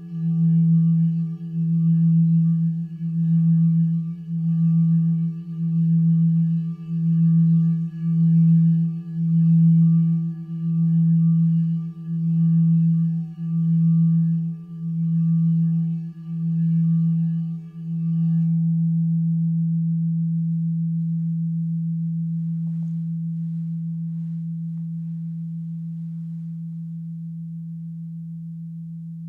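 Large frosted quartz crystal singing bowl sung by circling a mallet around its rim: one low tone with a slow wah-wah pulse about once a second. About eighteen seconds in, the rubbing stops and the bowl rings on in a steady tone, slowly fading.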